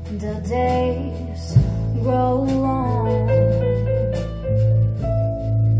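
Music streamed through a hi-fi system and its loudspeakers: a voice singing a gliding melody over sustained low bass notes and instrumental backing.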